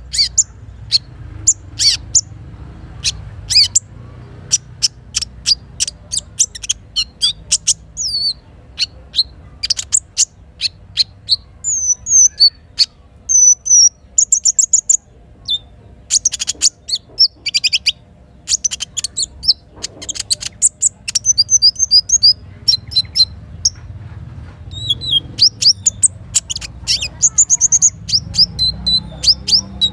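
Little spiderhunter (sogok ontong) calling: loud, sharp, high chirps in quick rapid runs, with some short gliding whistled notes, over a steady low rush of a flowing river.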